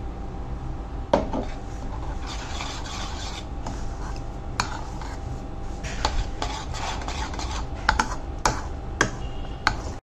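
A spoon stirring and scraping grainy semolina batter in a bowl, with sharp clinks of the spoon against the bowl, once early and several times in the second half, over a low steady hum.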